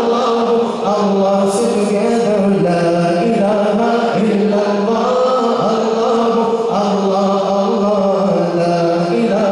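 A man reciting a naat: unaccompanied devotional singing in Urdu into a microphone, with long held, gently wavering notes.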